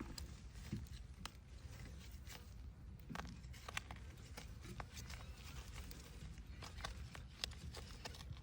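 Faint, irregular crackles and rustles of garden plants being handled and pulled during harvesting, over a steady low rumble.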